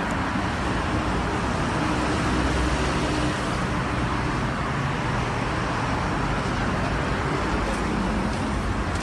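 Steady road traffic noise: cars and vans passing on a busy multi-lane road, a continuous rumble and hiss with no single event standing out.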